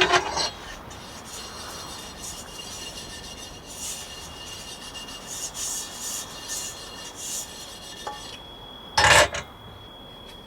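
Dishes being scrubbed by hand in repeated rubbing, rasping strokes, with a clatter at the start and one loud knock about nine seconds in.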